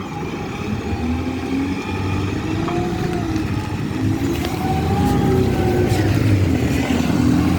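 Bus engine growing louder as the bus approaches, its engine note rising and falling.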